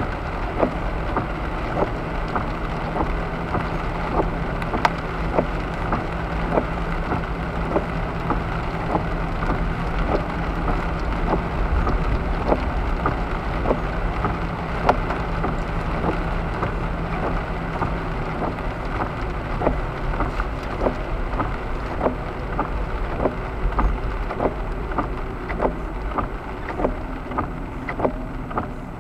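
Raindrops ticking irregularly on a car's windshield and roof over the steady rumble and hiss of the car driving on a wet road. The low drive hum drops out about two-thirds of the way through, and the road noise eases near the end as the car slows.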